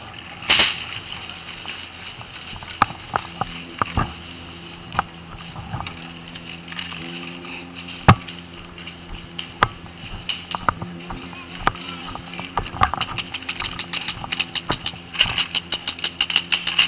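Paintball markers firing: scattered single pops throughout, then a quick volley of many shots in the last two seconds, over a steady low engine hum.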